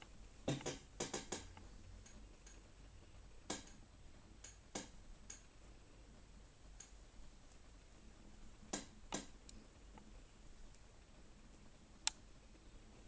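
A kitten moving about on a hard floor: scattered light taps and clicks from its paws and claws, a quick cluster near the start and single taps after that.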